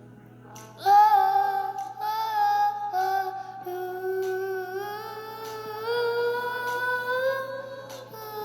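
A female voice singing long held notes without clear words, a cappella, the pitch sliding slowly between notes.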